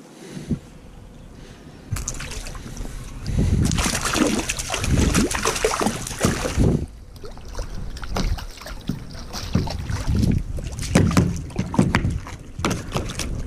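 Water splashing as a small hooked jack pike thrashes at the surface beside a kayak and is landed by hand. It starts about two seconds in, with irregular sharp splashes.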